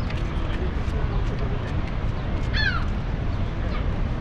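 Steady low rush of the American Falls at Niagara, with one short bird call falling in pitch about two and a half seconds in.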